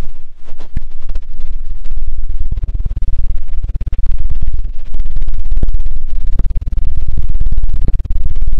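'Helicopter' ear-cleaning ASMR: a thin stick rubbed and flicked very rapidly over the silicone ears of a binaural microphone, giving a loud, fast, choppy thumping flutter with deep low thuds. It breaks off briefly a few times.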